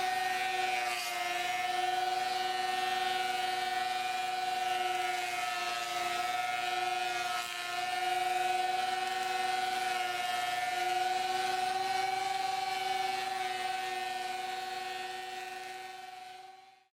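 Ridgid 13-inch thickness planer running steadily, its motor and cutterhead giving a high whine that sags slightly in pitch now and then as boards feed through. It fades out near the end.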